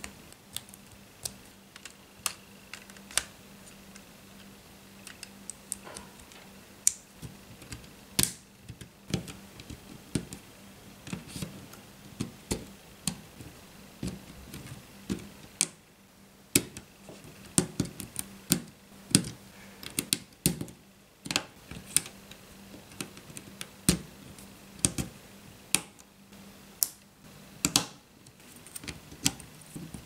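Lego Technic plastic parts being handled and snapped together: irregular sharp clicks as pins, beams and gears are pushed into place, coming thicker in the second half. A faint steady low hum lies underneath.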